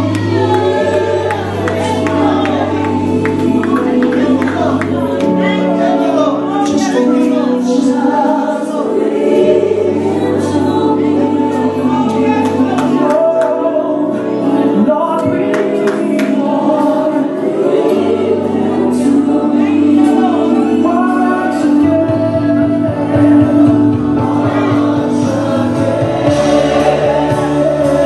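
Gospel song with voices singing over the band, playing steadily throughout.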